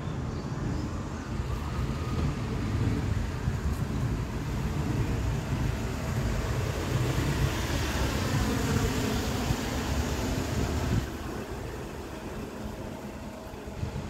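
Street traffic: a steady low rumble of road noise, with a passing vehicle's tyre hiss swelling about halfway through and dropping off abruptly about three-quarters of the way in.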